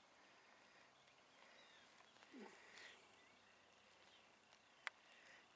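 Near silence: faint outdoor ambience with a few faint, brief chirps and a single small click near the end.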